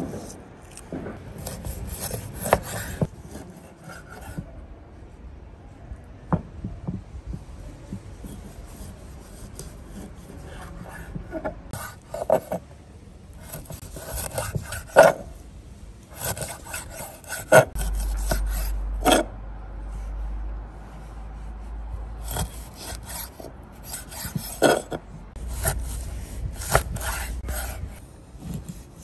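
Stainless chef's knife slicing fat off raw oxtail and cutting the tail into pieces on a wooden cutting board. Rasping, scraping cuts are broken by repeated sharp knocks as the blade strikes the board.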